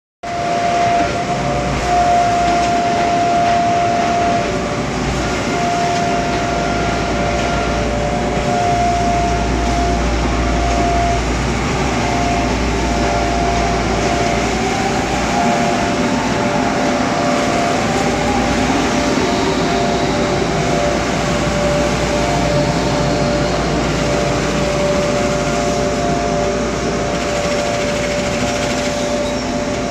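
SP-ZD4500x2500 automatic jumbo folder gluer running, feeding and folding corrugated board: a steady, loud mechanical din with a deep rumble and a steady tone that drops in and out.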